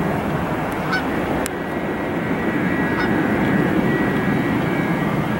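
Lufthansa Airbus A380-800's four Rolls-Royce Trent 900 turbofans at approach power on final, gear down: a steady rumbling jet noise. A thin high engine whine grows stronger in the second half.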